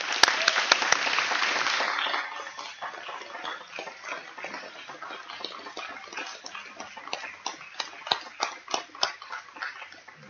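Audience applauding, dense and loudest for the first couple of seconds, then thinning to scattered individual claps.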